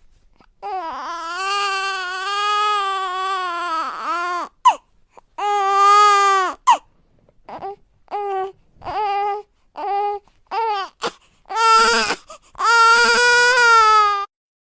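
Newborn baby crying: a long wail of about three and a half seconds, a second wail, then a string of short, clipped cries, ending with two more long wails.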